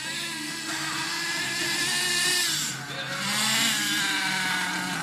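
A small motor running with a whine that rises in pitch about half a second in and dips briefly around three seconds in.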